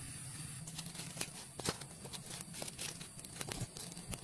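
Scattered sharp clicks and crinkles, starting under a second in, as a sweet potato is laid among lumps of charcoal in a small ground fire pit.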